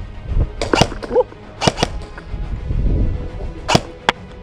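Airsoft gunfire: sharp single snaps, several in quick pairs, over low rumbling movement noise, with faint music underneath.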